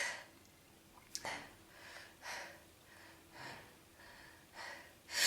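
A woman's short, noisy breaths and sniffs between sneezes during a sneezing fit: the tail of a sneeze fades at the start, about six quick breaths follow, and near the end a rising inhale builds toward the next sneeze.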